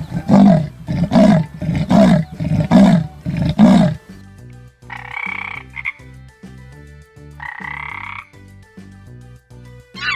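A leopard's sawing call: five deep, rough rasps about a second apart. Then, over soft background music, a frog croaks twice in short rasping bursts.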